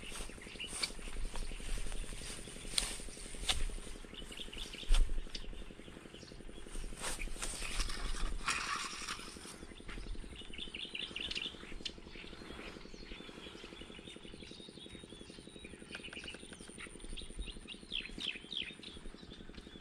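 Small birds chirping in short runs of quick notes, with scattered close knocks and rustles; one sharp knock about five seconds in is the loudest sound.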